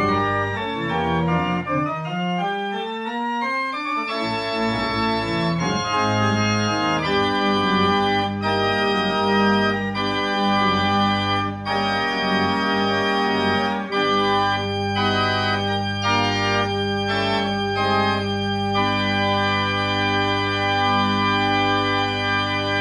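Church organ playing the final bars of a postlude: quick rising runs of notes in the first few seconds, then full sustained chords over a long held low pedal note from just past the middle, ending on a held final chord.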